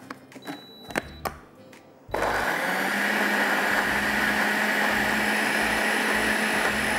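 A few light knocks, then about two seconds in a countertop blender switches on and runs steadily, grinding a thick green chutney of coriander, mint, green chilies, ginger, garlic and yogurt.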